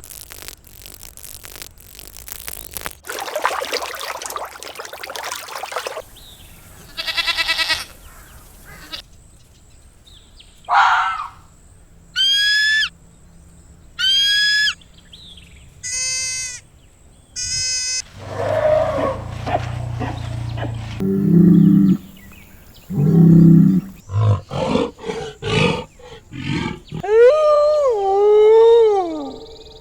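A series of different animal calls cut one after another, among them roars of a big cat such as a lion or tiger. Short repeated whistling calls and trills come in the middle, and long wavering calls near the end.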